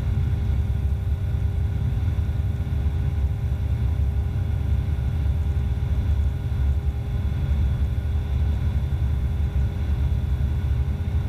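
Evektor SportStar light sport aircraft's Rotax 912 flat-four engine and propeller droning steadily in cruise, heard from inside the cockpit: a deep, even rumble with a few steady tones above it.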